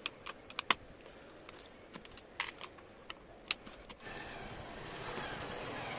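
Scattered sharp metal clicks and ticks of a flat-head screwdriver working the small screws out of an angle grinder's gear housing. After about four seconds the clicks stop and a steady hiss takes over.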